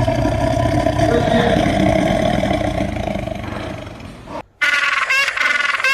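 A wild animal's long, loud call, held for about four seconds and then cut off abruptly. About a second before the end, a different animal starts a quick series of short, high calls that sweep up and down in pitch.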